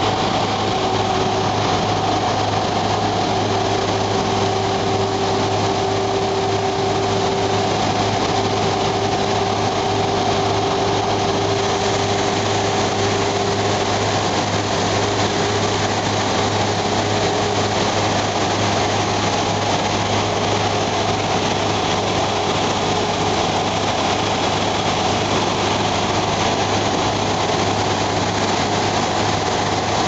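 Fendt tractor running steadily under load, driving a front-mounted PTO snow blower that throws oilseed rape through its chute: a constant engine drone with a steady whine over a dense hiss.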